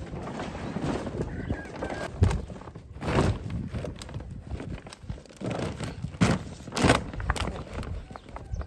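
Plastic tarpaulin rustling and crinkling in short bursts as it is pulled and smoothed over a dome-shaped shelter, with a dull thud about two seconds in.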